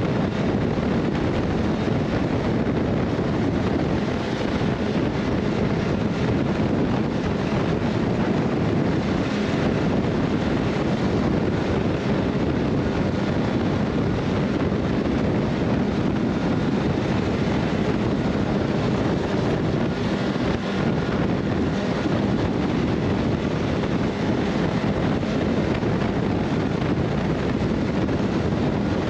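Steady wind rushing over the microphone with a low rumble while riding.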